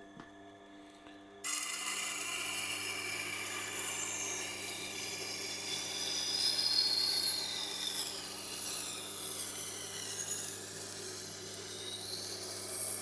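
Steel knife blade being ground against a turning Tormek sharpening wheel: a steady scraping hiss that starts suddenly about a second and a half in, over the low hum of the machine's motor. The edge is still being raised, not yet finished.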